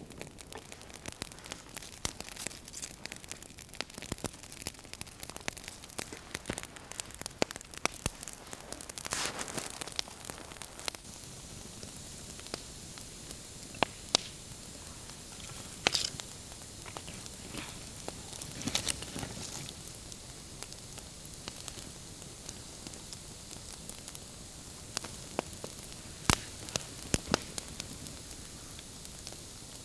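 Small wood campfire crackling, with a steady hiss and irregular sharp pops, a few louder than the rest.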